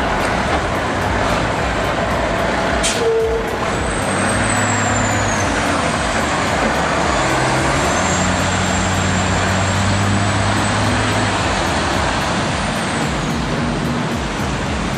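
Heavy diesel truck engine running, its pitch shifting as it works, with a brief sharp hiss about three seconds in and a thin high whine that rises and falls.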